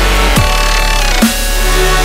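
Electronic dance music with a deep, steady bass line and heavy kick drums striking twice, about a second apart.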